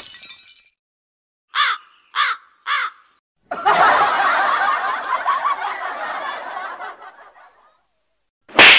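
Comedy sound effects: three short crow-like caws, then a few seconds of laughter that fades out, and a brief loud hit near the end.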